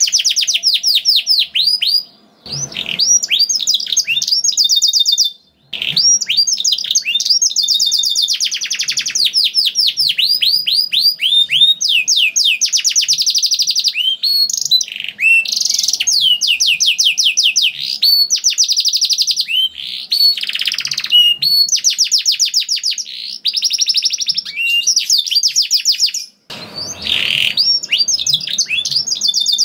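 Domestic canary singing a long song of fast trills: rapid runs of repeated down-slurred notes. The song breaks briefly about two and a half and five and a half seconds in, and again near the end.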